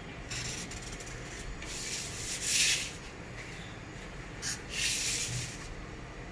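Marker pen and plastic pattern ruler scratching and rubbing on brown pattern paper as lines are drawn, in four short scratchy strokes, the loudest a little before the middle.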